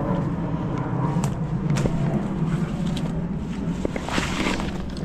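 Footsteps on a dirt path and rocks, with scattered knocks and a brief scuffing rustle about four seconds in, over a steady low rumble.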